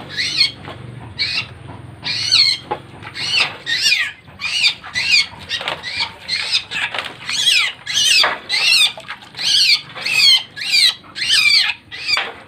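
Birds calling over and over, short harsh notes that each rise and fall in pitch, about two a second and at times overlapping.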